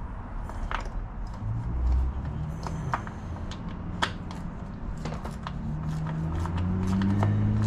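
Scattered metallic clicks and taps of a ratchet, extension and socket being worked on the intake manifold bolts of a Chevy 5.3L V8, under a low hum that swells near the end.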